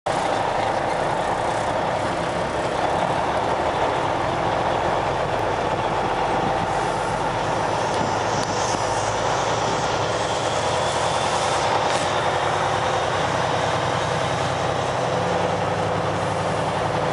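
Kenworth semi truck's diesel engine running steadily while it drives along a gravel road, heard from inside the cab together with tyre and road noise.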